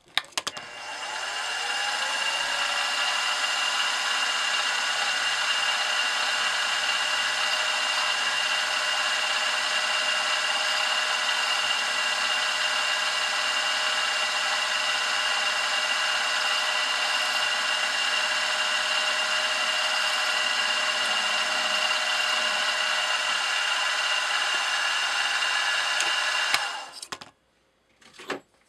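Benchtop milling machine's spindle motor spinning up with a rising whine, then running at a steady high whine while a 9/64-inch twist drill bores into a brass cylinder head. It is switched off near the end and stops within about a second.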